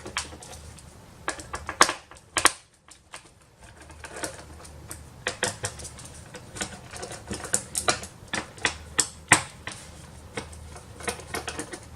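Screwdriver backing out the screws that hold the all-in-one computer's stand foot: a string of irregular sharp metal clicks and taps.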